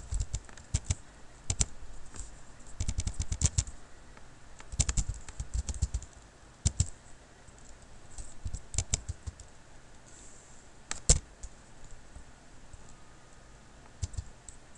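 Typing on a computer keyboard: short bursts of keystrokes separated by pauses, with one louder key press about eleven seconds in.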